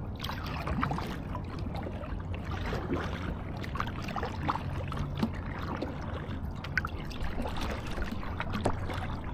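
Water lapping and splashing against a kayak's hull as it moves across choppy lake water, in many small irregular splashes. Wind rumbles steadily on the microphone underneath.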